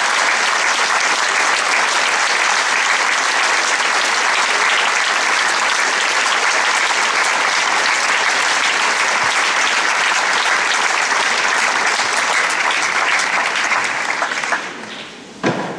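Large audience applauding steadily in a hall, the clapping dying away near the end. A single sharp knock sounds just before it ends.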